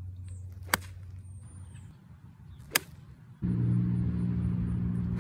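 Sharp clicks of a golf club striking the ball: one about a second in, one near three seconds, and a louder one at the very end. From about three and a half seconds a steady low engine hum runs underneath.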